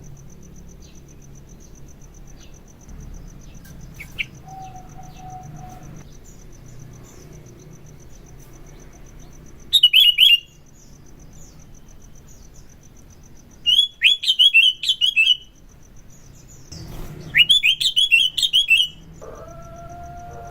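Sooty-headed bulbul (kutilang) singing in three short bursts of rapid, bubbly chirps: about ten seconds in, around fourteen seconds, and again around seventeen to nineteen seconds. A steady high insect trill runs underneath.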